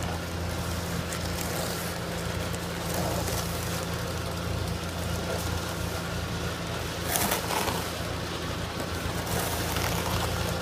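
Concrete pump running steadily as it pushes concrete through the delivery hose, a constant low engine drone. A brief louder rasp comes about seven seconds in.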